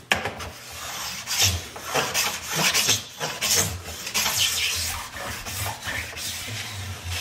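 Hand tool shaving the plastic sidewall along a ski's edge: a series of rasping strokes one after another as strips of sidewall come off.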